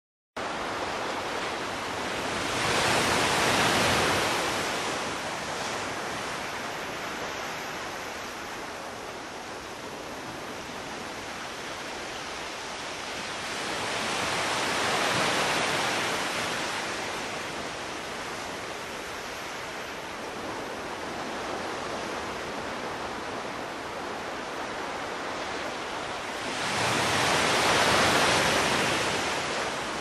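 Ocean surf washing onto a beach: a steady rush of water that swells louder three times, roughly every twelve seconds, as waves break and then falls back.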